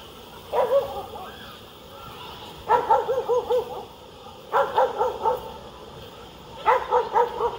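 A dog barking in four quick runs of several short, high barks each.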